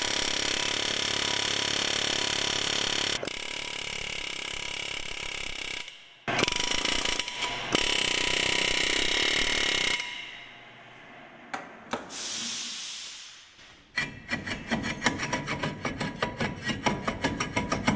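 Air impact wrench hammering in two long runs on a rusted front wheel hub, then a few knocks, then the brake rotor and hub being rocked back and forth by hand, rusty metal scraping in a steady rhythm of about three strokes a second.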